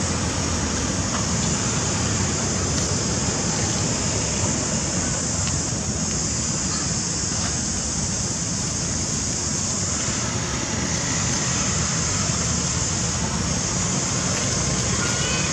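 Steady outdoor background noise: a low rumble with a constant high hiss above it, and no distinct events.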